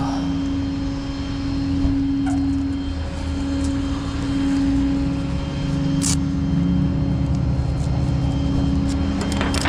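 A vehicle engine running steadily, with a constant low hum over a rumble. A few short clicks come near the end.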